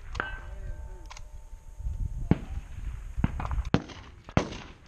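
Several rifle shots at an uneven pace, one near the start, one about two seconds in and two close together near the end, the last the loudest.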